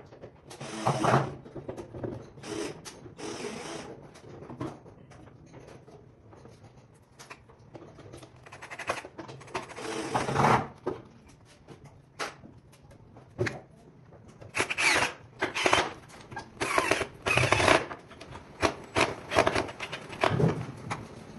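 Cordless drill-driver driving screws into the particleboard panels of a flat-pack sideboard, in short runs of about a second with pauses between, about ten in all, most of them in the second half.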